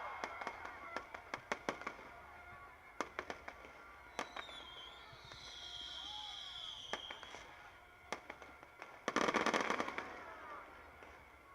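New Year fireworks going off: scattered sharp bangs and pops, a high whistle sliding down in pitch from about four to seven seconds in, and a dense burst of crackling about nine seconds in.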